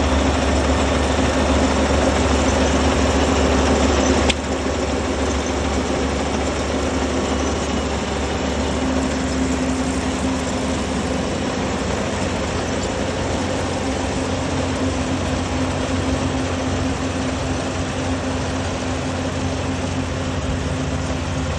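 Rice combine harvester's engine running steadily. There is a single click about four seconds in, after which it runs a little quieter.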